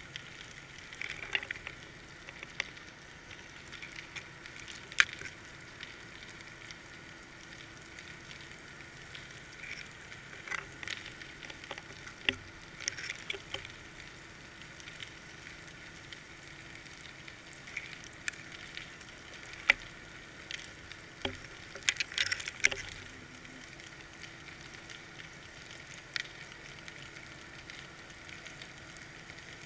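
Underwater sound heard through a GoPro's waterproof housing on a fishing line: sparse, irregular sharp clicks and short crackles over a steady hiss and a faint steady hum, with a cluster of clicks a little past the middle.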